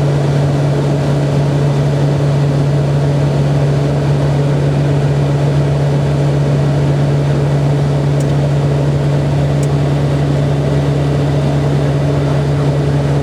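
Steady drone of a Beech Royal Turbine Duke's PT6 turboprop engines and propellers in cruise, heard inside the cabin: a constant low propeller hum over engine and airflow noise.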